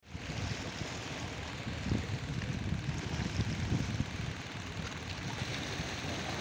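Wind buffeting the microphone in irregular low gusts, over a steady rush of sea and wind.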